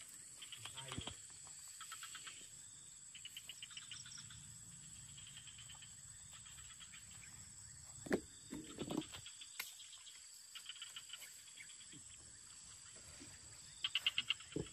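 Insects chirping outdoors: a steady high drone with short, rapid pulsed calls repeating every second or two, loudest near the end. A couple of brief knocks or handling sounds about eight and nine seconds in.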